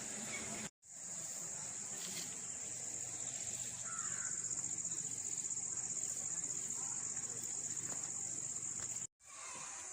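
Steady high-pitched drone of insects, with a short bird call about four seconds in. The sound cuts out completely for a moment twice, once near the start and once near the end.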